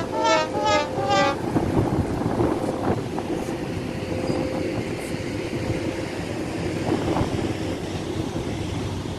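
Strong wind buffeting the microphone, with four short horn toots in the first second or so.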